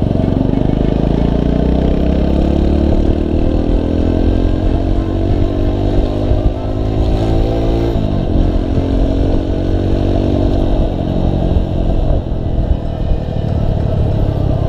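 Motorcycle engine accelerating, its pitch climbing for about eight seconds until an upshift drops it sharply. It climbs again and then settles to a steady cruise, with heavy wind rumble on the microphone throughout.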